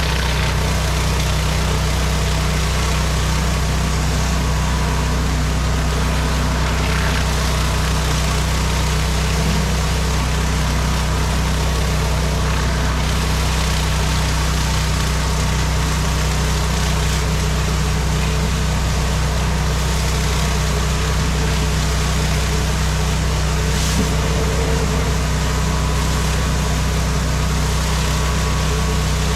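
Pressure washer's gas engine running steadily under load, with the constant hiss of the high-pressure water spray on concrete.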